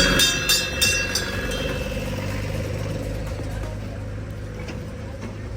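An engine idling with a steady low hum, with a few sharp clicks in the first second.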